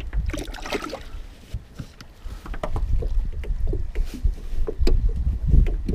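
Knocks and thumps of handling in a small metal fishing boat as a crappie goes into the livewell and the carpeted livewell lid is shut, over a steady low rumble. There is a noisy burst about half a second in, and the knocks get louder in the second half.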